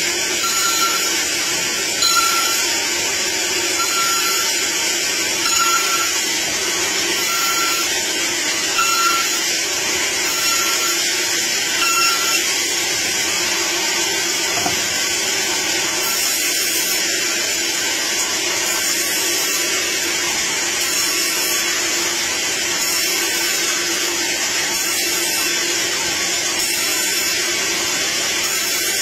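Band saw resawing a wooden plank into thin boards: the blade runs steadily through the wood in one long, even cut.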